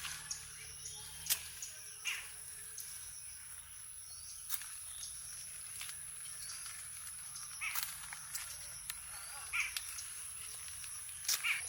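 Outdoor rural ambience: short bird calls every couple of seconds over a steady high-pitched whine, with scattered sharp clicks and knocks.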